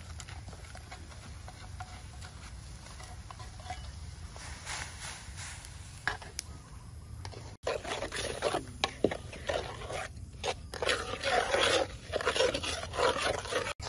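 Metal ladle stirring and scraping a steel wok of sizzling oil over a wood fire. The sizzling and scraping become much louder and busier about halfway through, with irregular sharp scrapes.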